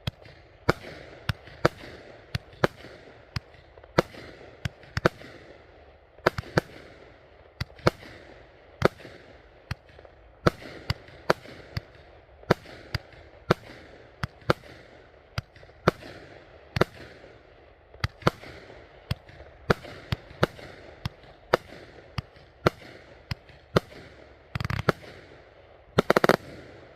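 Taco Fireworks' Brocade Blues, a 49-shot 500-gram fireworks cake, firing: a steady string of sharp, hard-hitting reports, about two a second, each trailing off in a fading tail. Near the end comes a rapid, louder cluster of shots as the finale.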